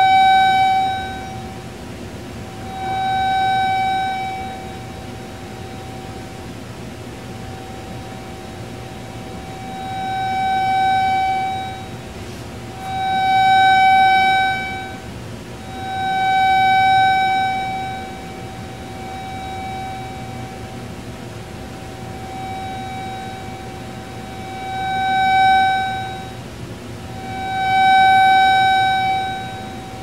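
A steady mid-pitched electronic tone from a loudspeaker playing a microwave receiver's signal as audio. It swells loud and fades about eight times, at uneven intervals, without changing pitch, as the receiver slides through the alternating constructive and destructive interference fringes set up by the two-horn microwave emitter.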